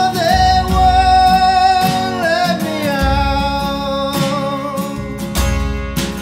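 Live band music with an acoustic guitar strummed, a drum kit and a long wordless sung note that slides down to a lower pitch about two and a half seconds in, with more voices singing harmony.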